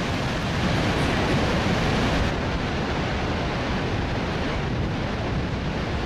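Steady rush of water pouring over Niagara Falls, mixed with wind buffeting the microphone. A little over two seconds in, it turns slightly quieter and duller.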